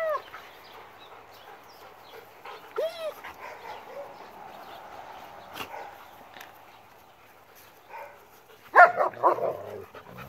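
German Shepherds barking: one bark at the start, another about three seconds in, then a quick burst of several loud barks near the end.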